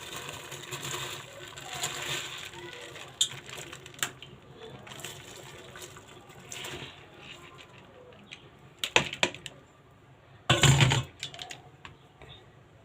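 Parboiled rice being added to a pot of tomato stew, with a hissing rustle and scattered clinks of a spoon against the pot, and one louder, brief knock near the end.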